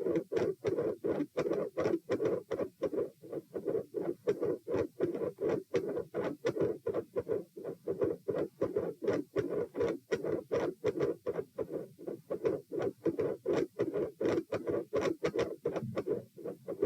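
Heart sounds heard by auscultation over the chest: a rapid, unbroken run of loud lub-dub beats, several sharp thuds a second, varying abruptly in intensity from beat to beat.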